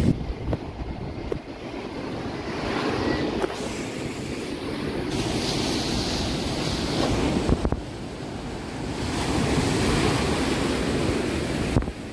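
Rough sea surf breaking and washing against a rocky shore, swelling and easing in several surges, with wind buffeting the microphone.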